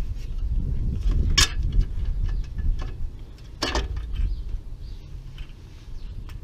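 Small metallic clicks and clinks as a clutch pressure plate and its bolts are handled against the flywheel and a bolt is started by hand, with two louder clinks about one and a half and three and a half seconds in. A low steady rumble runs underneath.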